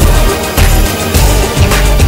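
Background music with a steady, heavy beat of about two strong hits a second.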